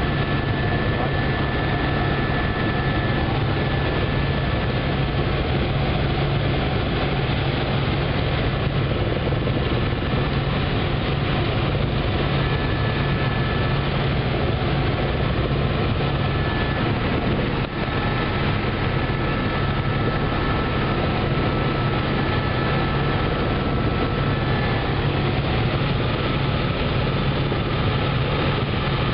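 Helicopter engine and rotor noise heard from inside the cabin in steady flight: a dense, steady drone with a strong low hum and a faint high whine that comes and goes.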